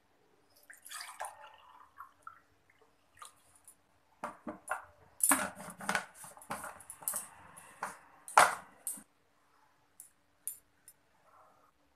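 Hot water poured from a vacuum flask into a drinking glass, among clinks and knocks of the flask, its cap and the glass on a stone counter. The loudest knock comes about eight seconds in.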